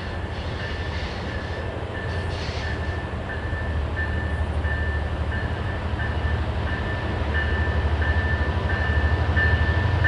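Approaching train: the low rumble of a diesel locomotive growing steadily louder, with a short high ding repeating about twice a second.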